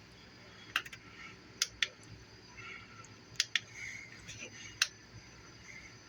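Sharp, short clicks of the buttons on an Inkbird temperature controller being pressed to change the setpoint, several presses at uneven intervals, some in quick pairs.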